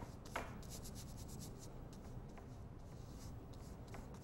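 Paintbrush strokes on stretched canvas: the bristles, loaded with oil paint thinned to a runny consistency, scratch and swish across the surface in a run of short strokes, with a sharper click about half a second in.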